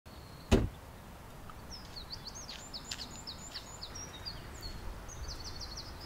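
A small songbird singing a quick phrase of high, sweeping notes that ends in a short rapid trill, over a steady low outdoor background. A single loud thump comes about half a second in.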